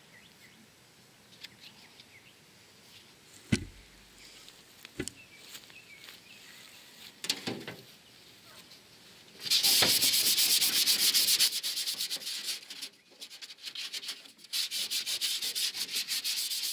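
Hand sanding of bare aluminum on a jon boat's hull and rail: quick back-and-forth rasping strokes begin about ten seconds in, stop briefly, then resume near the end. Before that there are only a few light knocks of handling.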